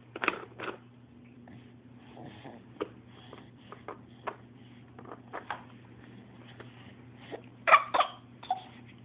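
A baby making short, forced fake coughs: a pair just after the start and a louder pair near the end, with faint taps in between.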